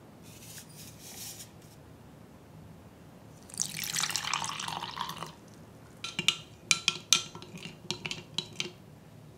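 Foil powder sachets rustle faintly. Then milk is poured into a glass measuring jug for about two seconds, the pour sinking in pitch as the jug fills. After that a spoon stirs and clinks against the glass in quick, sharp taps with short rings.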